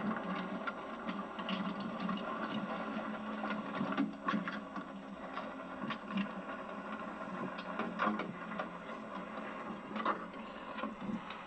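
Steady low hum of a workboat's engine, with a few sharp knocks and clatters as long-handled oyster tongs are worked over the side.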